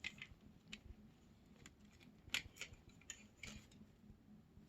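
Faint, irregular clicks and snaps of plastic curtain glides being pressed and worked out of a metal traverse rod, the strongest a little past the middle.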